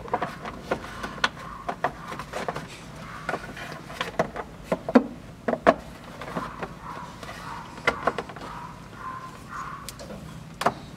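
Stiff plastic fan shroud being worked into place by hand around the radiator and fan, giving irregular clicks and knocks.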